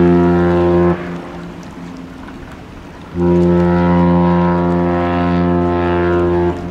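A cruise ship's deep horn sounding long blasts: one already going cuts off about a second in, and a second blast of a bit over three seconds starts about three seconds in and stops near the end. Long blasts like these signal the ship leaving her berth.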